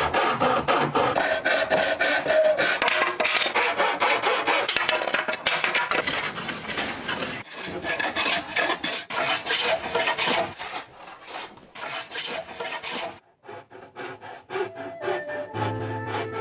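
Hand tools working wood: a thin-bladed frame saw cutting a plank and a wooden hand plane shaving, in quick rasping strokes that thin out to separate scrapes late on. Music comes in near the end.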